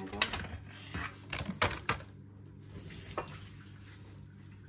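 Scattered light clicks and taps of kitchen items being handled during pizza making, mostly in the first two seconds, over a low steady hum.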